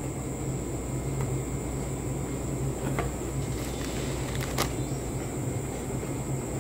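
Steady low hum and hiss of background noise, with two faint clicks about three seconds and four and a half seconds in.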